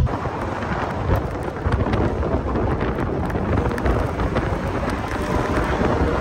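Car driving fast through snow, with snow and slush thrown up by the car ahead pelting the windscreen and body in a dense crackling rush over the tyre and engine noise.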